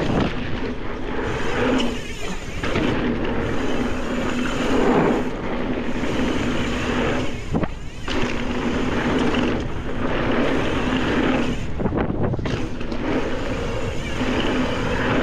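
Mountain bike being ridden along a dirt trail: a steady rush of wind across the camera microphone mixed with tyre noise, dropping away briefly three times.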